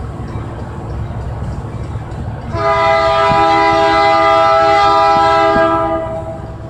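Union Pacific diesel locomotive's air horn sounding one long blast, a steady multi-note chord of about three and a half seconds that starts about two and a half seconds in. A low rumble runs underneath.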